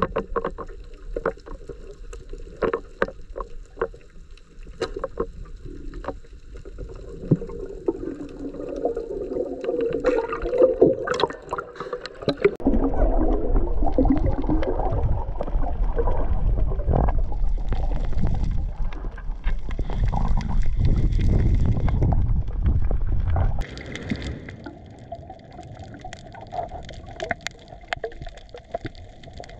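Underwater sound picked up by a diving camera over a reef. First come many scattered sharp clicks and crackles. About twelve seconds in, a loud low rushing of water starts and runs for about ten seconds, then stops suddenly, and quieter clicks return.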